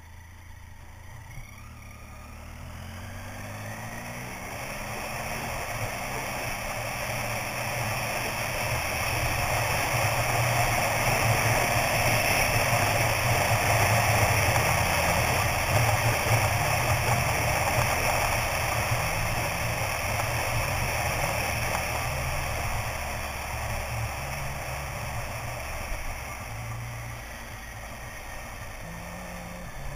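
Triumph motorcycle's three-cylinder engine pulling on the open road, with wind rushing over the camera microphone. The sound builds over the first ten seconds as the bike picks up speed, then slowly eases off towards the end.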